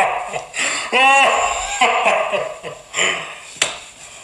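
A man laughing in several bursts, with a high swooping cry about a second in.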